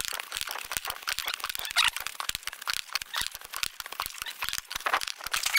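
Chalk scratching and tapping quickly on a small handheld slate: a dense, irregular run of sharp clicks and scratches.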